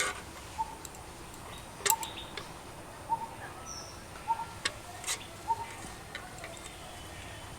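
A bird repeating one short clear call about every second, over a few sharp clicks and knocks, the loudest about two seconds in.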